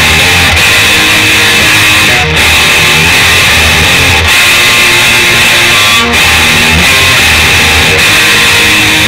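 Black Mexican-made Fender Stratocaster-style electric guitar played through an amp with a heavily distorted tone, loud low-note riffing with brief breaks between phrases about every two seconds.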